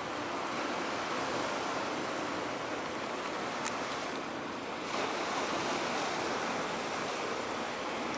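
Steady rushing of wind and water, with a single faint click about three and a half seconds in.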